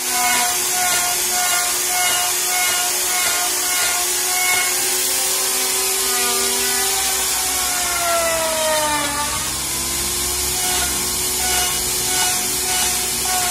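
Handheld electric trim router running and cutting along the edge of a wooden slab: a steady motor whine over the hiss of the bit chewing wood. The motor's pitch falls around eight to nine seconds in, then climbs back.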